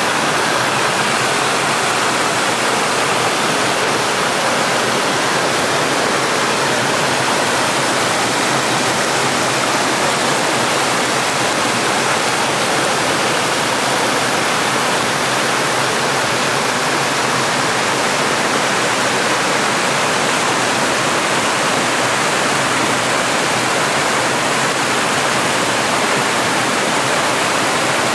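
Forest stream rushing over rocks and down a small cascade: a loud, steady, unbroken rush of water.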